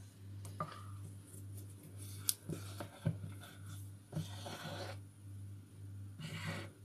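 A ladle clicking and scraping against plastic bowls as cake batter is scooped and poured, with a few sharp clicks and two short scrapes. A low hum pulses about twice a second underneath.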